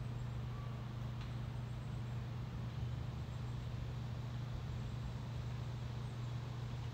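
A steady low hum with no change in level or pitch.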